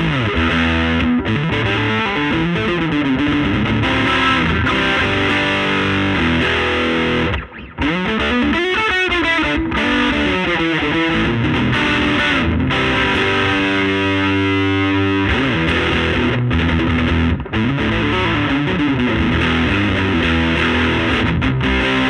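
Electric guitar on its bridge P90 pickup played through the overdriven gain channel of a Laney Lionheart L5 Studio valve amp into a miked 15-inch Jensen Alnico speaker: distorted chords and riffs, with a brief break about a third of the way in.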